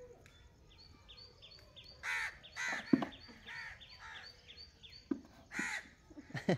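Crows cawing several times, harsh calls spaced a second or so apart, over a small bird chirping steadily about three times a second. A few sharp knocks cut in, the loudest about three seconds in.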